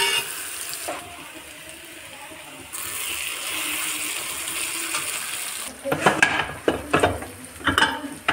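Chopped onions, green chillies and tomatoes sizzling in hot oil in a kadhai, a steady frying hiss. From about six seconds in, a clatter of metal knocks as the steel pressure cooker is opened.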